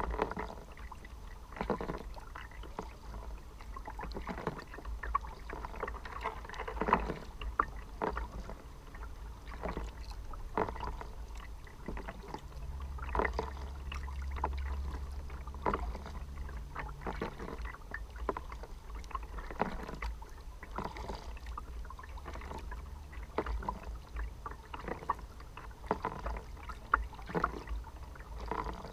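Kayak paddling: paddle blades dipping and splashing at an irregular pace, with water dripping and lapping against the hull over a low steady rumble. A low hum joins in for about four seconds midway.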